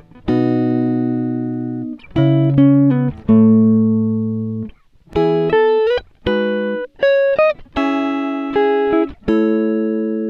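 Background music: an instrumental guitar part playing slow single notes and chords, each left to ring out, with a few short slides between notes.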